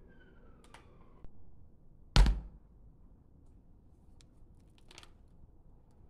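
A single sharp thump about two seconds in, like an object knocked or set down on a hard kitchen surface, with a few faint clicks and taps around it.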